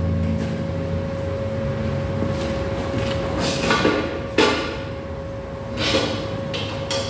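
Steel parts clanking on a steel workbench as a welded bar is handled: four sharp metal knocks in the second half, over a steady faint hum.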